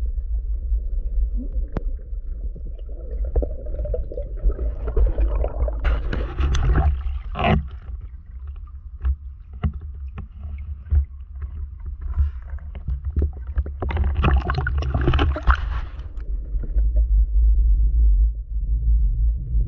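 Water moving around a diver's action camera: a steady low rumble with scattered clicks, and two louder stretches of sloshing and splashing, about five seconds in and again around fourteen seconds in.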